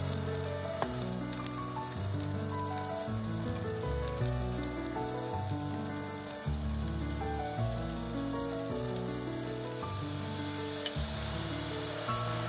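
Thin slices of beef sizzling in hot oil in a frying pan, with fine crackles and pops. Background music plays over it.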